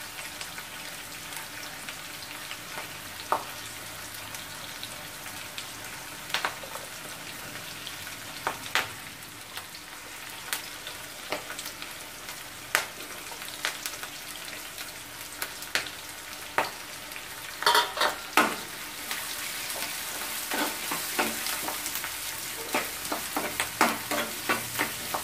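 Chopped onion, curry leaves and green chillies sizzling in hot oil in a nonstick kadai, with scattered sharp pops and clicks. About three quarters of the way through, the sizzling grows louder as a steel ladle stirs the mix, with more frequent clicks.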